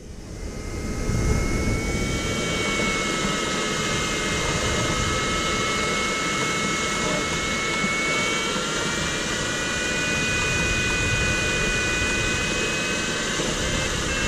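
Steady rush of airflow over an ultralight sailplane's canopy in flight, fading in over the first second or so. Over it runs a steady audio variometer tone that drifts slowly in pitch with the changing climb rate, in lift near zero sink.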